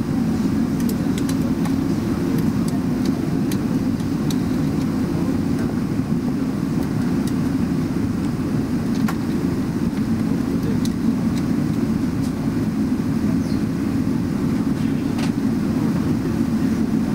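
Steady low hum and rumble in the cabin of a Boeing 777-300ER as it moves slowly across the apron, with a few faint clicks.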